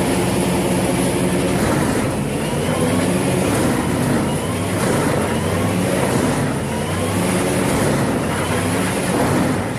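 Wood chipper's engine running steadily, with a faint rising whine that repeats about once a second.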